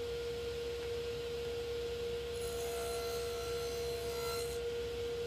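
Table saw running with a steady tone, cutting shallow grooves in thin wooden box sides fed across with a push block. A faint cutting hiss comes in from about two and a half to four and a half seconds in.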